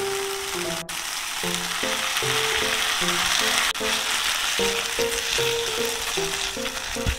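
Ground chicken sizzling in a nonstick frying pan as tomato sauce is stirred into it with a spatula.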